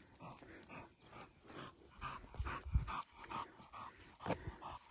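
A dog panting in quick, even breaths, about three a second, with a few low thumps on the microphone.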